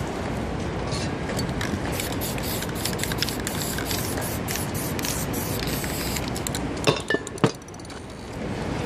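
Aerosol spray-paint can hissing in many short, quick bursts, followed near the end by three sharp knocks.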